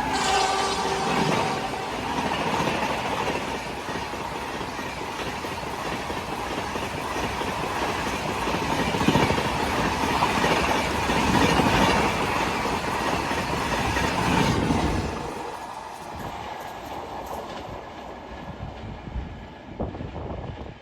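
Electric-hauled passenger express passing at speed: coaches rumbling and clattering over the rail joints. The noise drops off sharply about fifteen seconds in, leaving a fainter rumble with a few sharp clicks.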